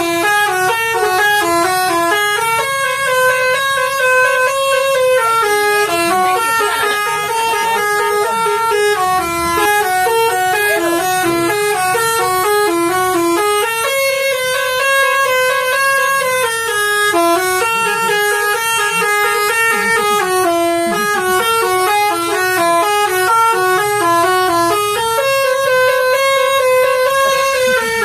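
Bus telolet horn, a set of multi-tone horns, playing a fast melody of quickly stepping notes without a break. The tune repeats about every eleven seconds, with a longer held note in each round.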